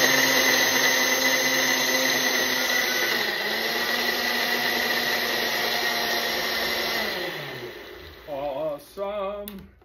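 Countertop blender running steadily, blending a lime and coconut milk drink with ice cubes. Its motor pitch dips briefly about three seconds in, then it winds down with a falling pitch around seven seconds.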